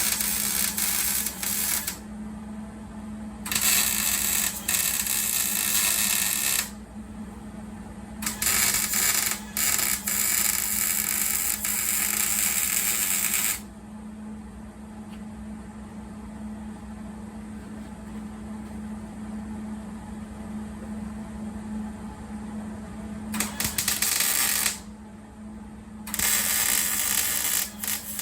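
MIG welder laying short weld beads, five bursts of crackling, sputtering arc with pauses between, the longest about five seconds, over a steady low hum.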